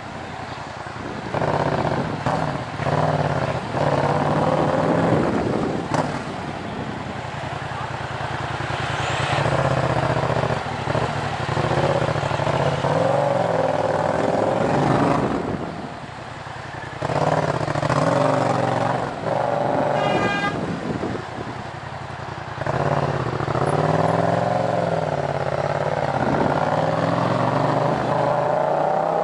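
2014 Yamaha MT-07's parallel-twin engine, breathing through a Tiger full-system exhaust with decat headers, running loud at low speed. It blips up and drops back repeatedly with several bursts of throttle. A short car horn sounds about twenty seconds in.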